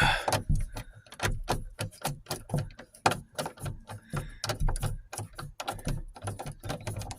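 Ratcheting screwdriver with a T20 Torx bit clicking in quick, uneven strokes as it loosens a screw holding the rear roof glass.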